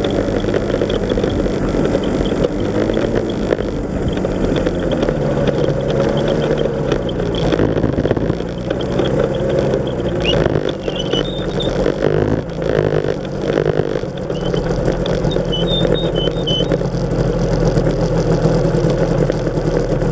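The microlight trike's Rotax 582 two-stroke engine runs at low power while taxiing on the ground, its speed rising and falling with the throttle. A few knocks and rattles come about halfway through as the trike rolls over rough ground.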